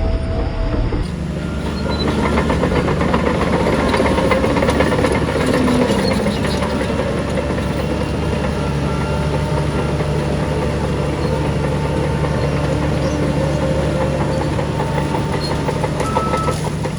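Crawler bulldozer's diesel engine running steadily under load, with its steel tracks clanking, rattling and squealing.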